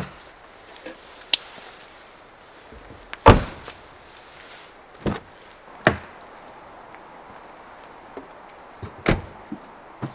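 Subaru Outback car doors being shut: a series of solid thumps a second or more apart, the heaviest about three seconds in and the last near the end. A steady hiss of rain runs behind them.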